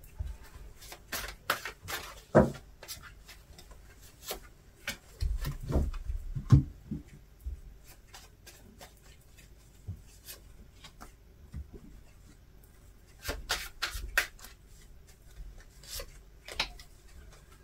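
Tarot cards being shuffled and laid down on a tabletop: soft taps, flicks and rubbing of card against card, busier about a second in, again around five to seven seconds, and once more about thirteen seconds in.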